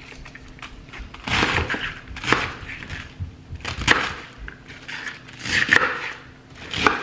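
Kitchen knife cutting through raw green cabbage on a plastic cutting board: about five cuts, each a short sudden burst, a second or so apart.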